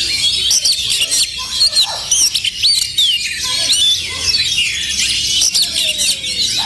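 Oriental magpie-robins (kacer) in full competition song: a dense stream of rapid, loud whistles, chirps and trills, several birds overlapping.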